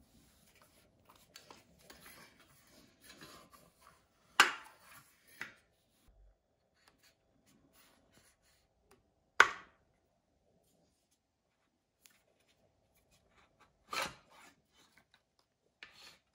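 Handling noise from a cordless circular saw that is not running, on cardboard packaging. Soft rustling and light clicks come first, then three sharp knocks about five seconds apart, with a smaller knock just after the first, as the saw is turned over and set down.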